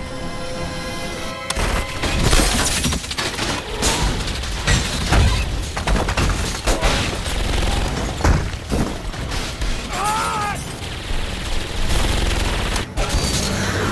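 Action-film sound effects: rapid gunfire, heavy impacts and shattering debris, one hit after another, over a deep rumble and background music. A short wavering whine rises and falls about ten seconds in.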